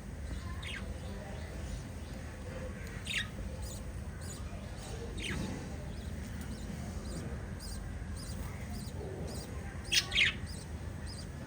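Small pet parrots chirping: a few short, scattered high-pitched chirps, then two louder calls close together near the end, over a steady low background hum.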